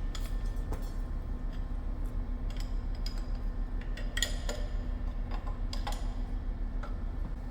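Light metal clinks and ticks of a workpiece and tools being set up on a milling machine, over a steady machine hum.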